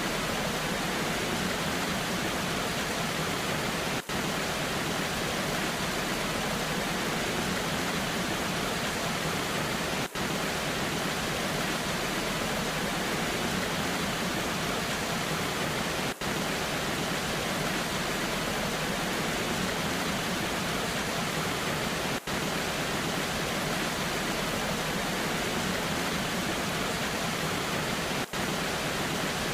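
Steady rush of a waterfall in the rain: an even wash of water noise with a brief drop-out about every six seconds.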